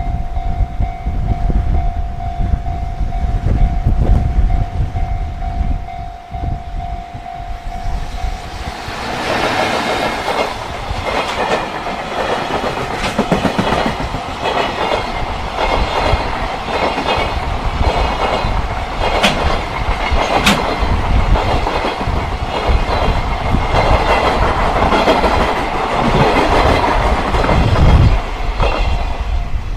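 JR Freight freight train passing at reduced speed, its wagon wheels clattering over the rail joints from about nine seconds in. Before it arrives, the level-crossing warning bell rings as a steady tone, and strong gusting wind rumbles on the microphone throughout.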